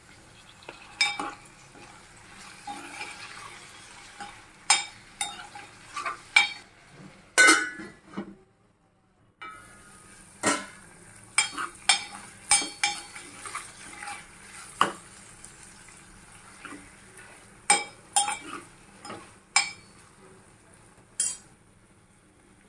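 Steel spoon stirring broad beans and tomatoes in an aluminium pot, with repeated sharp knocks and scrapes of the spoon against the pot's sides over a faint sizzle of the vegetables frying. There is a brief complete silence about eight seconds in.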